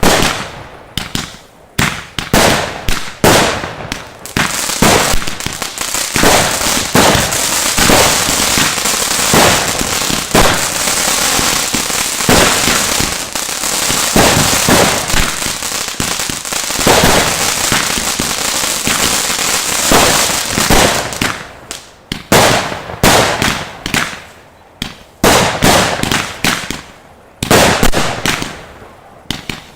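Aerial fireworks going off in a rapid series of loud bangs. For most of the middle stretch the bangs come so fast they run together into one continuous barrage. Near the end they space out again into separate bangs.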